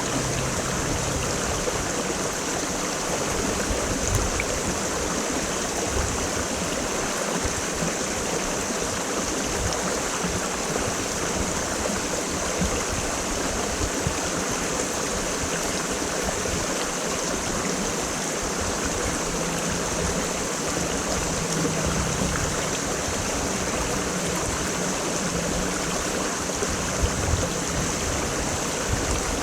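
Mountain stream (quebrada) flowing over rocks: a steady rush of running water with small gurgles, unchanging throughout.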